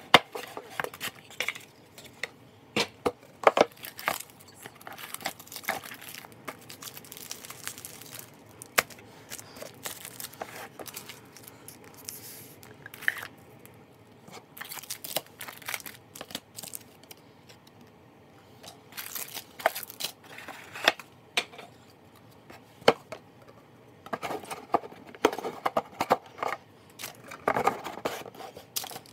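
Cardboard and plastic packaging being handled and opened: crinkling and tearing with many short clicks and taps throughout.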